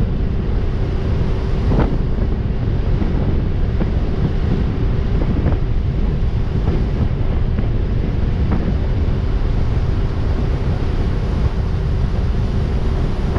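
Boat's outboard motor running steadily underway, a constant hum under heavy wind buffeting on the microphone and water noise.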